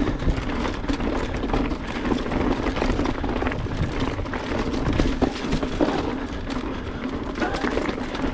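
Mountain bike riding down a rocky trail: tyres rolling and clattering over rock, with frequent short knocks and rattles from the bike, over steady wind rush on the microphone.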